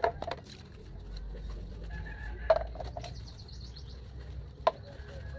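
Dishes and cups being handled during hand dishwashing: a few sharp clinks and knocks, the loudest about two and a half seconds in and again near the end. Faint bird calls are heard in the background.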